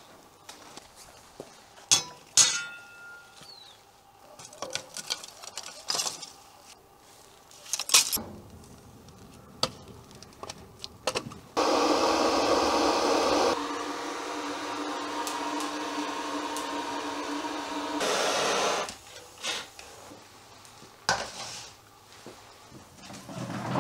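Scattered knocks and clicks, then a handheld canister gas torch hissing steadily for about seven seconds as it lights kindling in a tandoor, louder for its first two seconds and again briefly just before it cuts off. Near the end, a few light knocks and clinks of bowls set down on a wooden table.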